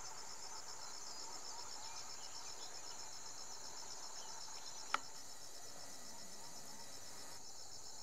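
Insects in the dusk forest calling steadily: a high-pitched, rapidly and evenly pulsing chirr that does not let up. A single sharp click sounds about five seconds in.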